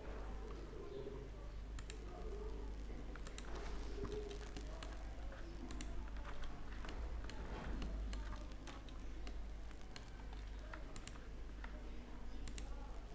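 Scattered, irregular clicks of a computer keyboard and mouse over a steady low hum.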